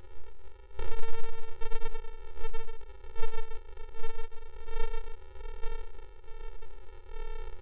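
Steady electronic drone made of several stacked tones, its level wavering and pulsing, which gets louder about a second in. A low rumble runs underneath.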